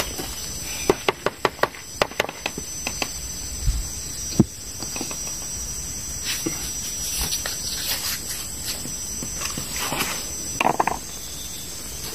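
Hands working a plastic seedling tray and plastic mulch film while transplanting seedlings: a quick run of clicks and taps in the first few seconds, a single knock about four seconds in, and rustling near the end.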